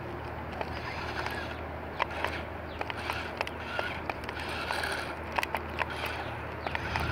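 Radio-controlled toy dump truck driving over gravelly dirt: a steady low hum with scattered small clicks and crackles.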